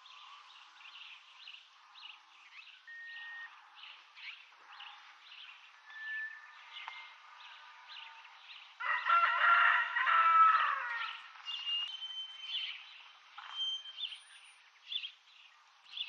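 Small birds chirping in short repeated notes, with a rooster crowing loudly once about nine seconds in, the crow lasting about two seconds.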